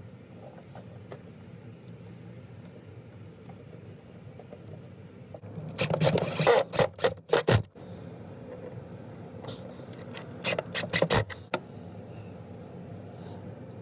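Metal hinge parts being handled and fitted together during assembly: two spells of quick clicks and scrapes, about six seconds in and again about ten seconds in.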